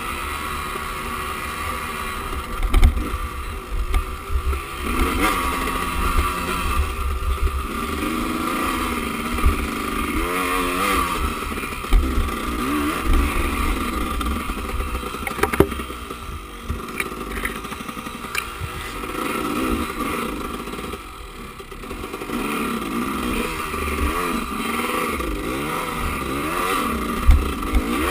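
Enduro motorcycle engine revving up and down over and over as the bike is ridden along a rough forest trail, easing off briefly about two-thirds of the way through. A few sharp knocks and some clatter come through from the bike over the ground.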